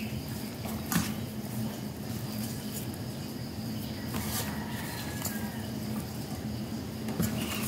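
Hands rubbing spice marinade into a whole raw chicken in a steel bowl: soft wet rubbing of the skin, with a few light knocks against the bowl, over a steady low hum.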